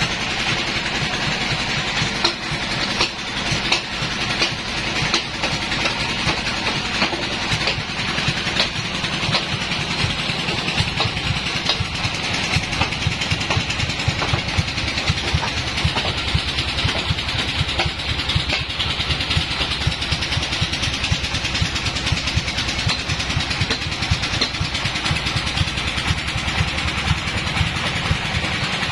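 Band sawmill machinery running steadily: a low, fast engine-like pulsing under a continuous hiss, with scattered short knocks.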